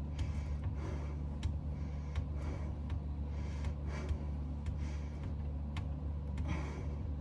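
A person breathing hard, in soft swells about once a second, while straining to fit pipework in a cramped space under a sink. Small clicks and taps of the plumbing parts and tools being handled come through over a steady low hum.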